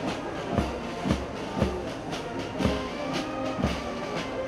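Music with a steady drum beat, about two beats a second, under held tones.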